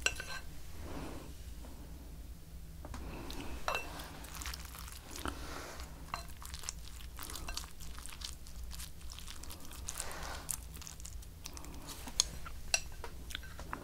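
Close-miked chewing of a mouthful of rice and fried egg, with many small wet mouth clicks and crunches, and two sharp clicks near the end.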